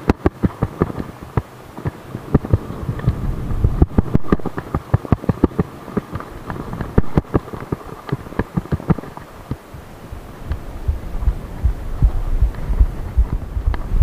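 Hardtail mountain bike rattling and knocking as it rides fast over rough dirt trail, with many irregular sharp knocks from bumps over a low rumble. The knocks thin out for a few seconds past the middle, then a heavier low rumble builds near the end as the tyres reach loose gravel.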